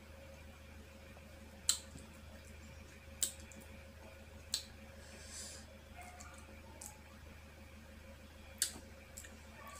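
Four sharp clicks, a second or more apart, of a utensil knocking against a ceramic plate while green mango slices are dipped in shrimp paste, with fainter ticks and a short soft hiss about halfway. A faint steady hum lies underneath.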